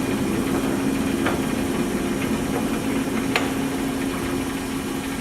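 Electric drive and headstock gearing of a 1941 Monarch geared-head lathe running with a steady hum, the motor left on while the speed range is shifted. Two light clicks, about a second in and past three seconds in, come as the shift is worked toward engagement.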